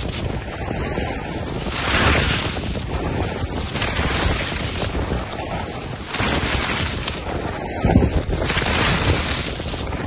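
Wind buffeting the microphone over the hiss and scrape of a snowboard carving through snow, the rush swelling with each turn.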